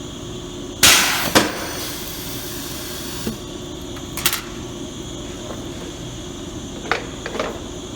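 Metal tooling being handled: a loud clattering knock about a second in that dies away over about a second, then a few separate sharp metal clicks and knocks. A steady machine hum runs underneath.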